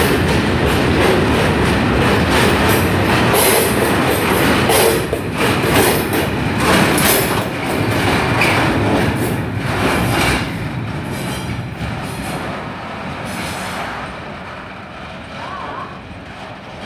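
Freight train's covered wagons rolling past on the rails, their wheels clattering over the rail joints. The sound fades away over the last few seconds as the train pulls off into the distance.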